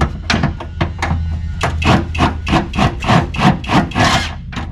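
Hand ratchet working fast to back off a fuel-tank strap bolt: a quick run of short rasping strokes, about six a second, over a steady low hum.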